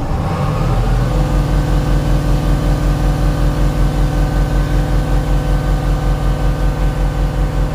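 Mahindra Blazo BS6 truck's turbo-diesel engine revving up in the first second, then held at high, steady revs under full throttle with a fast, even pulse. The turbo is underboosting: it makes only about 1.2–1.3 bar instead of the 1.4–1.5 bar it should, the low-boost fault behind code P0299 and the truck's weak pickup.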